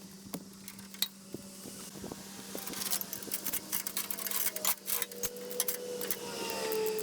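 Metal clinking and knocking, coming thicker from about two and a half seconds in, with a few sliding squeaks near the end, over a steady low hum.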